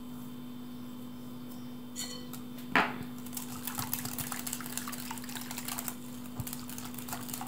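Wire whisk beating thin egg-and-milk batter in a glass bowl: a sharp clink a little under three seconds in, then a quick, continuous run of light clicks and liquid swishing as the whisk strikes the glass. A steady low hum runs underneath.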